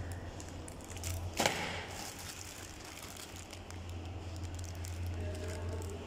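Clear plastic wrapping crinkling and crackling as a packaged double wall socket is handled and turned over, with one sharp, loudest crackle about a second and a half in. A steady low hum runs underneath.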